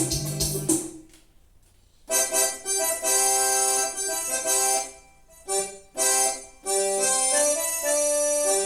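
Electronic keyboard playing. A rhythmic accompaniment with bass and drum beats stops about a second in, and after a short pause long chords and melody notes are held, with brief gaps between phrases.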